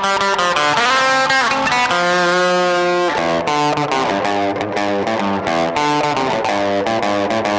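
Overdriven electric guitar playing a lead line as a tone check: a note bent up about a second in, a held note, then a run of quicker notes.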